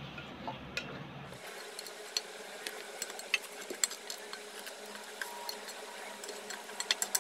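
Faint, scattered clicks and scrapes of a flat spatula stirring and pressing cooked sticky rice in a nonstick wok, with a quick run of clicks near the end.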